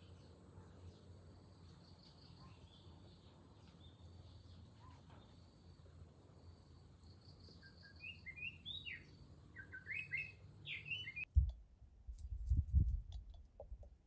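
Wild birds chirping in short quick notes over a faint steady background, the calls growing louder and busier toward the end. The background then cuts off abruptly, and a few low thuds follow, the loudest sounds here.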